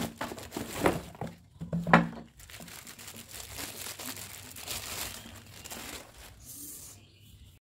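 Clear plastic wrapping crinkling and rustling as a steam iron is pulled out of its bag and cardboard box, with two louder rustles about one and two seconds in. It fades out near the end.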